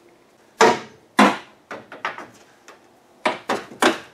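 Metal thunks and clanks of a car's hood being lifted and propped open: two hard knocks about a second in, a few lighter rattles, then three quick knocks near the end.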